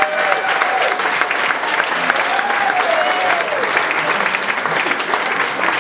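Audience applauding steadily, with a voice calling out over the clapping about two seconds in.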